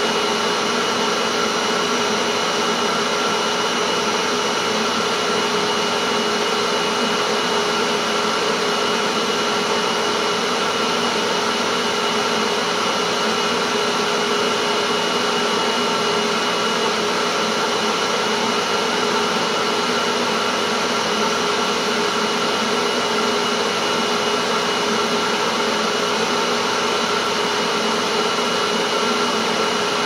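A 2012 Hoover Tempo Widepath bagged upright vacuum cleaner running steadily in place: an even rush of air with a constant whine made of several steady tones.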